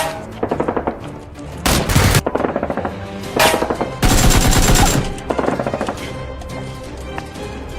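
Rapid bursts of machine-gun-style gunfire with background music underneath. The firing is densest in the first half and thins out after about five seconds, leaving the music.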